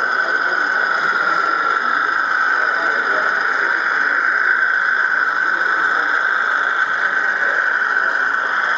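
Steady high-pitched whine of a running model train, over faint hall chatter.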